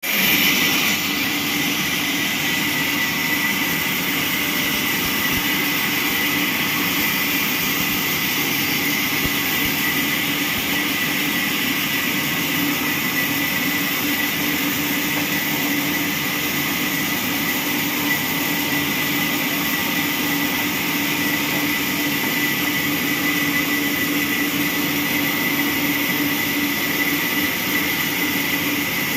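Horizontal carriage band sawmill running and sawing lengthwise through a squared log. A steady machine hum with a steady high whine, unbroken throughout.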